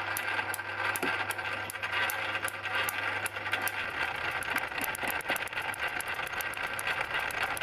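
Milling machine driving a Eureka form-relieving tool, clicking about four or five times a second as the cutter indexes round and the button tool form-relieves each tooth of a small module 0.6 gear cutter.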